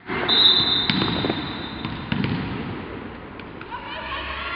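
Indoor volleyball play echoing in a sports hall: a long high referee's whistle in the first second and a half, sharp hits of the ball, and short calls from the players near the end.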